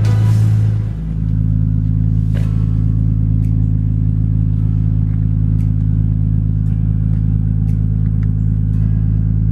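Nissan Skyline R34 GTT's RB25DET straight-six engine idling steadily, with a few faint clicks over it.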